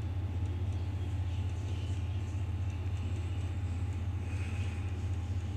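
A steady low hum with a faint hiss over it: constant background noise, with no speech or clear events in it.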